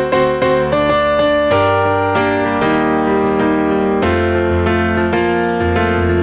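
A recorded keyboard part, sustained chords over bass notes, played back through an AudioScape 76A 1176-style compressor set to medium-fast attack and fastest release.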